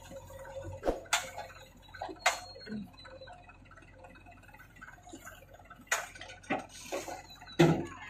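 Scattered sharp knocks and clinks of stones and metal as a JCB 3DX backhoe's bucket digs stony soil, lifts it and tips it into a tractor trolley, the loudest knocks near the end.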